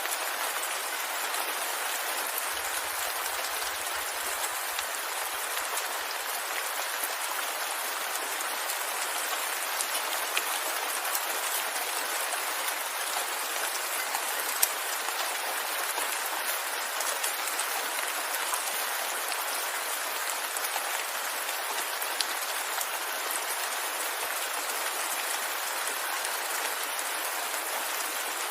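Steady rain falling, a dense even hiss of drops with an occasional sharper single drop standing out.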